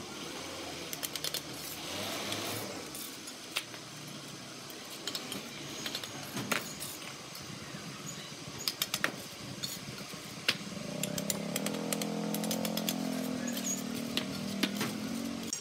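Bricklaying by hand: steel trowels tapping and scraping and bricks clinking and knocking as they are handled and set into mortar, heard as scattered sharp knocks and clinks. From about two-thirds of the way in, a small engine hums steadily underneath.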